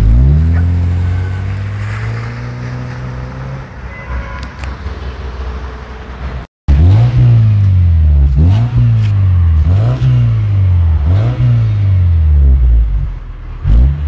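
Subaru engine revving through an aftermarket variable-valve exhaust. It gives one rev that sinks slowly back toward idle, then, after a brief break, a string of quick throttle blips about every one and a half seconds.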